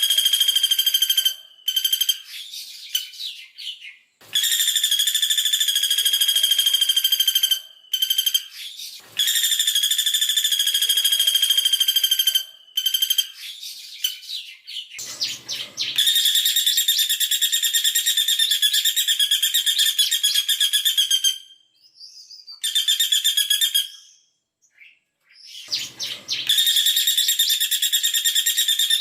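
Female caladi bawang, a small woodpecker, giving long, fast, machine-gun-like rattling trills. There are about six runs of a few seconds each, broken by short pauses with a few softer scattered notes.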